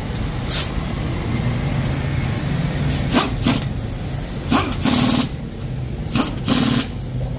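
An engine running steadily, with several short bursts of a pneumatic impact wrench, a few of them close together, as wheel lug nuts are run on.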